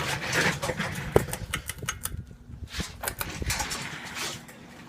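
42-inch Granco ceiling fan running on high: a steady motor hum under uneven rushing noise with scattered clicks.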